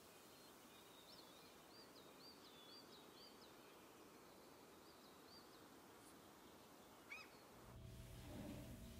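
Faint outdoor ambience with a small bird calling: a run of about five short rising chirps, a couple more a little later, and one louder call about seven seconds in. Near the end a low steady hum takes over.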